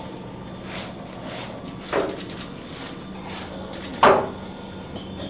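Repeated scrubbing strokes on a soldier's gear during a decontamination scrub-down, about one every two-thirds of a second. The strongest strokes come about two seconds in and about four seconds in.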